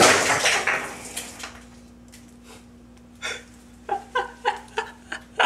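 Rustling and handling noise at first, then after a short lull a man laughing in short, quick bursts.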